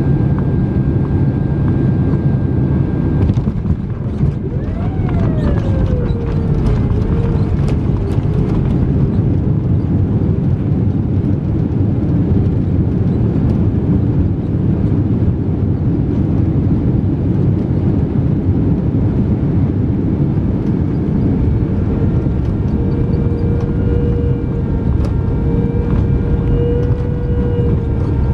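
Boeing 767-300 jet during its landing rollout, heard from a cabin window seat: a loud steady roar of engines and rushing air. About five seconds in an engine tone rises briefly and then falls away, with a few clicks and rattles after it. In the last few seconds a steady engine whine settles in as the jet slows.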